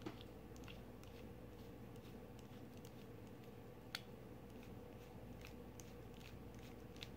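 Faint small clicks and scrapes of a precision screwdriver bit turning screws into a folding knife's handle, with one sharper click about four seconds in; the screws are not catching their threads.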